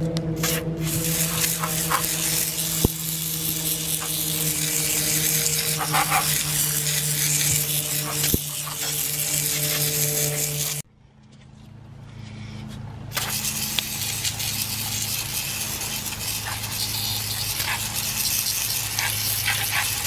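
Aerosol cleaner spraying a steady jet onto an oily cast oil filter adapter, a continuous hiss over a steady low hum. The spray stops suddenly a little past halfway and starts again about two seconds later.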